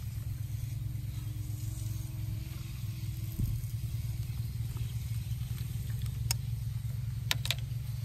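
Hand crimping tool squeezed shut on a butt splice connector, with three sharp clicks in the last two seconds, over a steady low rumble.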